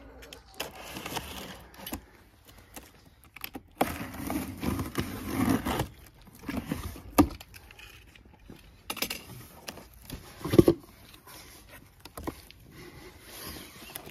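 Cardboard shipping box being opened by hand: the packing tape slit with a cutter, then the flaps pulled open, with cardboard scraping and rustling. There are a few sharp knocks, the loudest about two-thirds of the way in.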